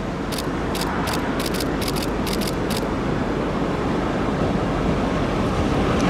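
Passenger train running past with a steady rumble that grows slowly louder as its coaches go by. An irregular series of sharp clicks comes in the first three seconds.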